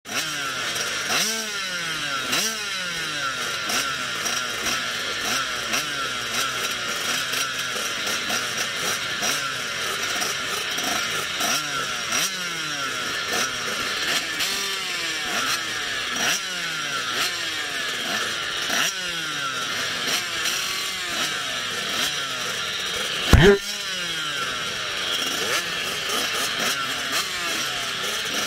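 Two-stroke motocross bikes, a Husqvarna TC 85 among them, running on a dirt track. The engines buzz and rise and fall in pitch over and over as the riders work the throttle and shift. There is a brief loud thump about 23 seconds in.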